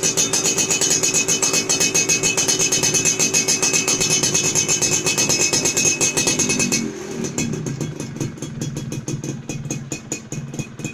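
Exhaust of a Yamaha F1ZR two-stroke motorcycle, held at high revs with a loud, steady buzz. About seven seconds in it drops back to a quieter, lower, pulsing run.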